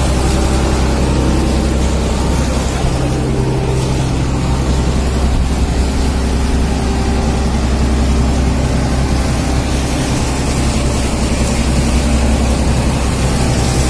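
The fishing boat's engine running steadily, a constant low drone, with water from a deck hose splashing over baskets of fish.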